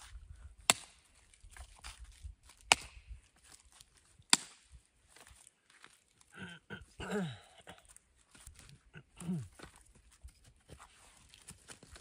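Three sharp knocks, about two seconds apart, like chopping strikes on wood. Later come two short, low, voice-like sounds, each falling in pitch.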